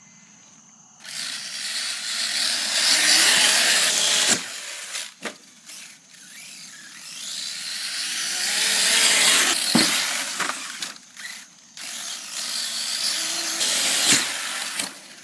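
High-speed RC car running: a loud motor whine with tire noise that swells about a second in and again in the middle, with a pitch that rises and falls. Several sharp knocks are scattered through it.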